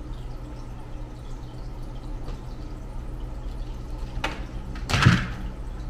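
Hand wire strippers clamping onto speaker wire and pulling the insulation off the end: a faint click about four seconds in, then a short, sharp scraping snap about a second later. A steady low hum runs underneath.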